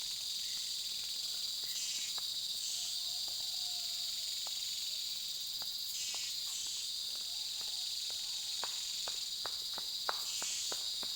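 Rainforest insect chorus: a steady, high-pitched drone that never lets up, with a few faint clicks near the end.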